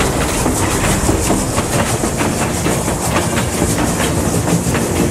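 Train running along the track: a steady rumble with the clickety-clack of wheels rattling over the rails, laid on as the sound of a moving steam locomotive.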